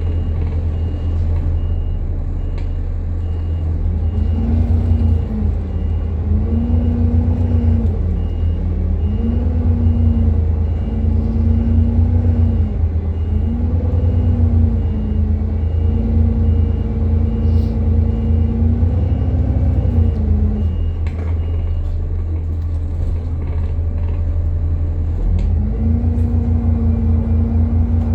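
Alexander Dennis Enviro400 MMC double-decker bus under way, its rear axle giving a loud whine that rises and falls in pitch as the bus speeds up and slows, over a heavy low rumble. The whine sets in a few seconds in, drops out for a few seconds after the middle and returns near the end.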